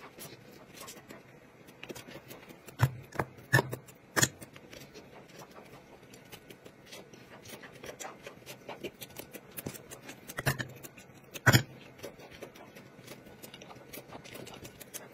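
Quiet close-up eating sounds: soft chewing and mouth noises, with a few sharper smacks and clicks about three to four seconds in and again around ten to eleven seconds in.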